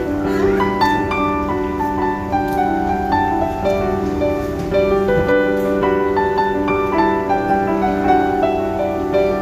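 Music: a melody of short, quickly changing notes over steady held low notes.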